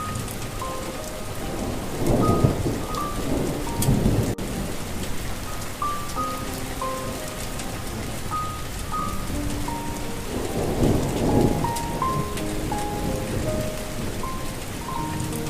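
Steady rain falling, with thunder rumbling twice, about two seconds in and again about ten seconds in. A soft, slow melody of single short notes plays over the rain.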